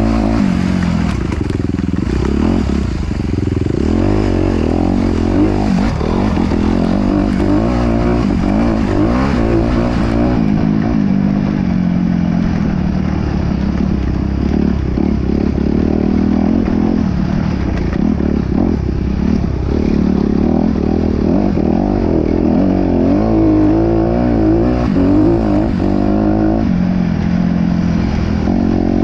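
An off-road vehicle's engine running under changing throttle, its pitch rising and falling as it revs and eases off.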